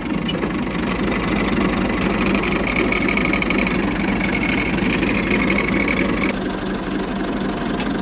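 Tractor's diesel engine idling steadily. A high-pitched whine joins it for a few seconds in the middle.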